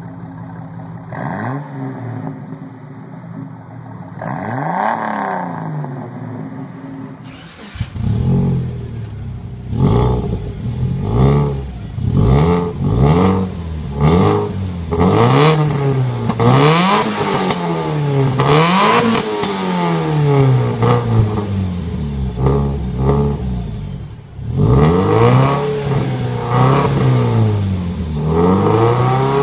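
A Jeep Cherokee XJ's exhaust blipped twice. Then, from about 8 s in, a Subaru Legacy BL5's flat-four through a K2Gear Spec-NeoDual aftermarket exhaust, revved over and over in quick rises and falls, about one rev every one and a half to two seconds.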